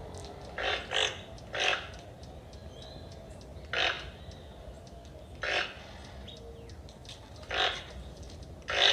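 Toco toucan giving a series of short, harsh croaking calls, about seven of them, one to two seconds apart, the first two close together.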